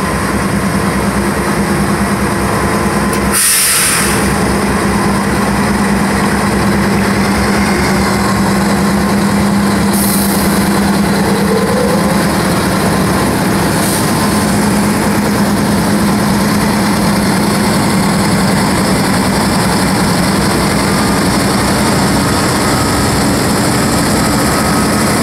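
Union Pacific diesel-electric locomotives running steadily, a loud constant engine hum. A short, loud hiss about three and a half seconds in, with two fainter hisses later.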